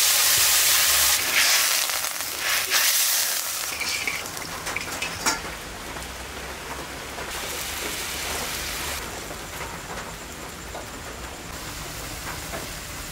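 Water poured into a hot karahi of frying ginger, chilli and turmeric pastes, hissing loudly at first with two more surges, then easing after about three seconds into a softer, steady sizzle as the gravy simmers.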